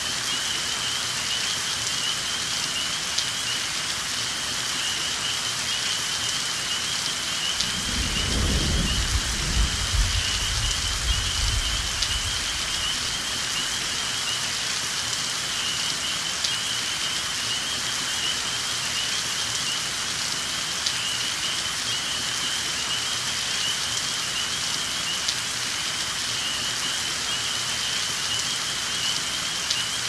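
Steady rain falling on a lake, with scattered individual drops audible in the hiss. About eight seconds in, a low roll of thunder rumbles and fades over roughly four seconds. A steady high-pitched tone runs beneath the rain throughout.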